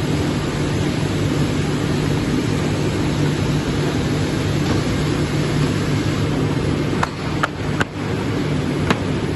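Polar 115 EMC guillotine paper cutter with its central air table running: a steady low hum with an even hiss. A few sharp taps come near the end as the paper stack is handled on the machine.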